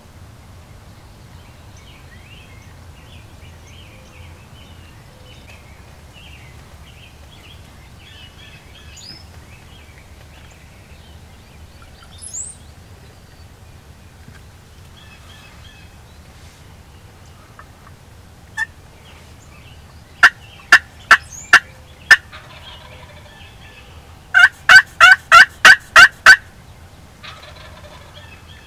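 Turkey calling: a handful of single sharp clucks, then a quick run of about eight loud yelps. Faint songbird chirps can be heard under it in the first half.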